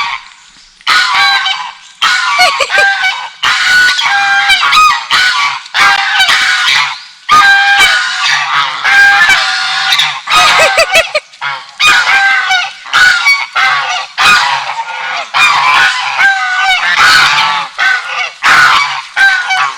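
Swan geese honking: loud, repeated nasal honks in quick succession, with calls overlapping and following one another without a break.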